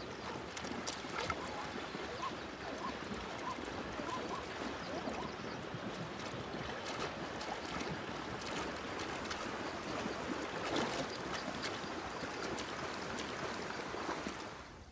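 Steady water splashing and sloshing, with scattered small splashes, as ostriches bathe in a shallow pool.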